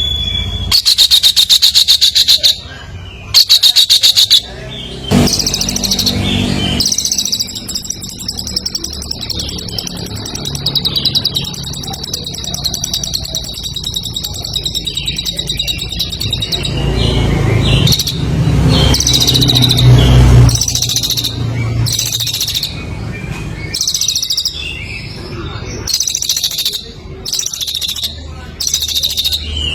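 Songbird singing loud, rapid chattering trills in bursts of a second or two, with one long steady buzzing trill lasting about nine seconds in the middle. A low rumble comes in about two-thirds of the way through.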